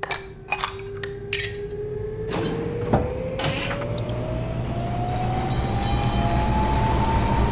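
Hong Kong tram's driving controls clicking and clunking as the controller handle and panel knobs are worked, then the traction motor's whine rising steadily in pitch as the tram pulls away, over a growing low rumble.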